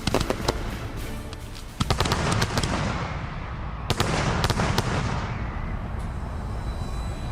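Fireworks display going off: a dense volley of sharp cracks and bangs from shells bursting, then a heavy boom about two seconds in with a long rolling rumble. A few more sharp reports come around four to five seconds in, and the barrage thins to a fading rumble near the end.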